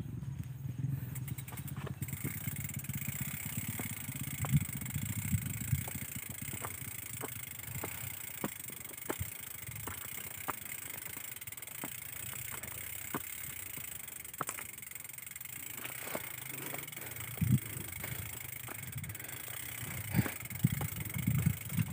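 Mountain bike moving along a rough dirt trail: a steady low rumble with many scattered small clicks and rattles.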